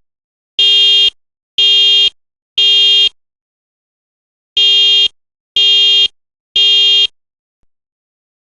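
Older-generation EST Genesis fire alarm horn sounding a buzzy horn tone in the temporal-3 evacuation pattern. It gives three half-second blasts a second apart, a pause, then three more.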